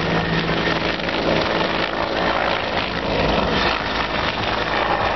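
Bell CH-146 Griffon helicopter's rotor and turbine sound, a steady hum that fades out about two seconds in, over a constant rushing background noise.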